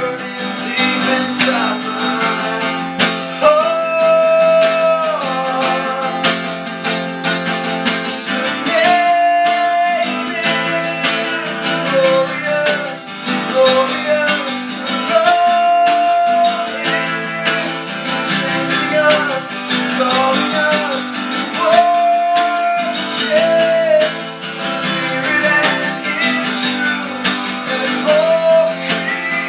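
Worship-song music: an acoustic guitar strumming chords under a melody of long held notes.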